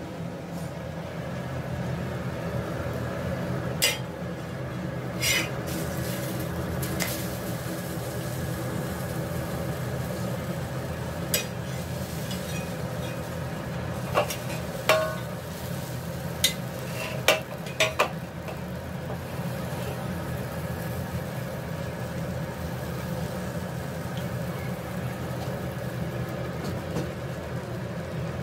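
Egg parotas frying on a flat iron tawa with a steady sizzle and hum. A steel spatula clicks and scrapes against the pan about ten times, scattered between about four and eighteen seconds in, as the parotas are turned and lifted.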